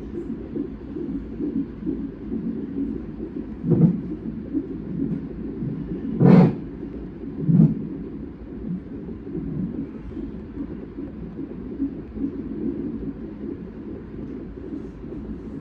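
Fetal heart monitor's Doppler speaker during a non-stress test: the fetal heartbeat comes through as a steady pulsing sound. Three louder thumps stand out, about four, six and a half, and seven and a half seconds in; the middle one is the loudest.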